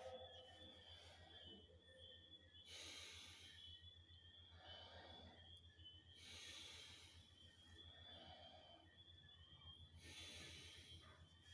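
Faint, slow breathing in and out through the mouth, deep breaths every couple of seconds, as for a lung auscultation. A steady low electrical hum runs underneath.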